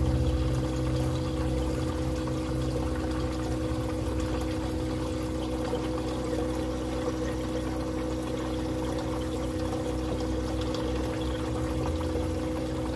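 Aquarium water trickling steadily over the hum of a pump.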